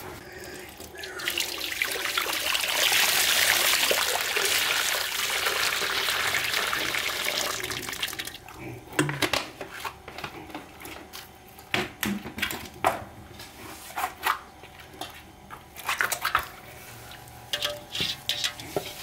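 Water running or pouring steadily for about seven seconds, then stopping, followed by scattered sharp clicks and knocks.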